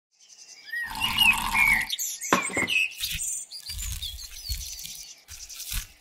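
Logo-intro sound effects: quick chirping whistles that glide up and down, a sharp swish, and soft low thuds scattered through the second half.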